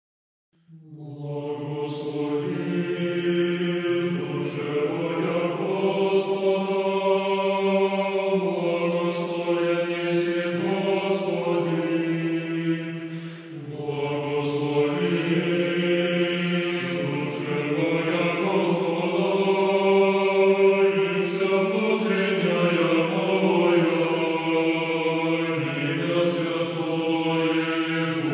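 Russian Orthodox choral chant: several voices singing words in slow, sustained harmony, with the chord shifting every few seconds. It starts suddenly from silence just under a second in.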